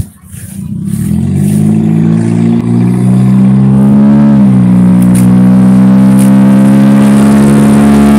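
Loud motor vehicle engine with a bad muffler, building up over the first couple of seconds and then running at a steady pitch, with a brief dip in pitch about four seconds in. Its loud exhaust is taken for a muffler that needs fixing.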